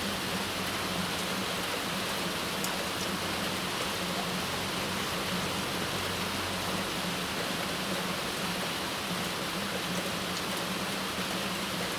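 Heavy rain falling steadily, an even hiss, with a steady low hum underneath.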